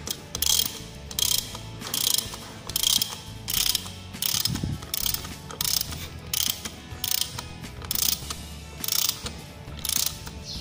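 Socket ratchet wrench clicking as it is swung back and forth to tighten an anchor bolt's nut. There is a short run of pawl clicks on each return stroke, repeating about every three quarters of a second.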